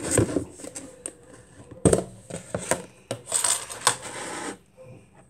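Clear plastic storage container being handled and its snap-on lid worked open: a series of knocks and clicks, the loudest about two seconds in, and a longer scraping rustle a little past the middle.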